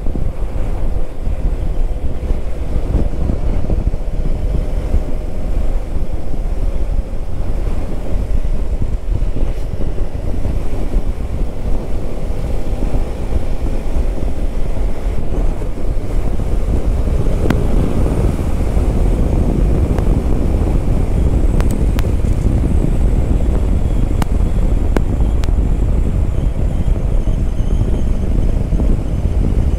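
Wind buffeting the microphone over the single-cylinder engine of a Hero Xpulse 200 4V motorcycle running steadily on the move. The engine's pitch drifts a little, and a few sharp ticks come in the second half.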